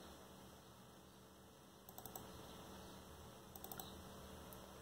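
Faint clicking at a computer over near silence: a few short clicks about two seconds in, a quicker cluster a little later, and one more near the end.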